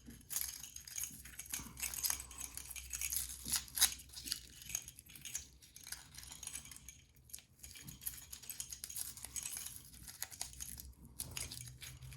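Lock and key being handled by hand: many light, irregular metallic clicks, taps and scrapes.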